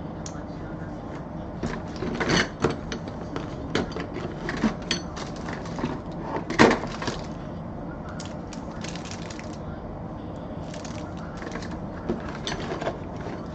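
Antenna parts and their packaging being handled: scattered rustles, clicks and light knocks over a steady background hiss, loudest about two and a half and six and a half seconds in.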